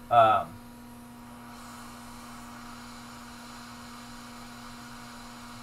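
Hot air rework station blowing at full airflow while heating the board: a steady airy hiss over a steady hum, filling out a little about a second and a half in.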